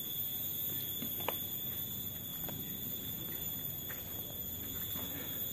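Quiet outdoor ambience under a steady high-pitched whine, with a few faint ticks.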